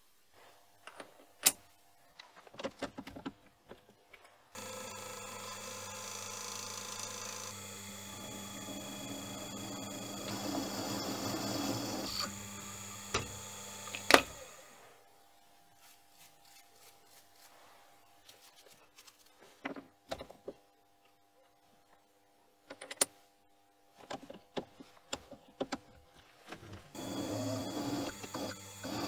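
Drill press running and drilling into a metal toolholder bar clamped in a machine vise, with the motor and cutting noise steady for long stretches. Scattered clicks and knocks of handling are heard near the start and in the quieter middle stretch, and one sharp click comes about halfway.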